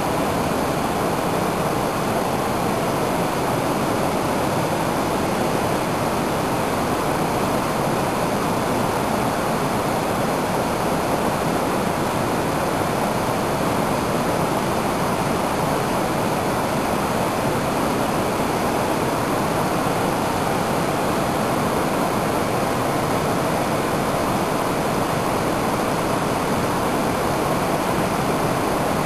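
A steady, unbroken rushing noise with no changes.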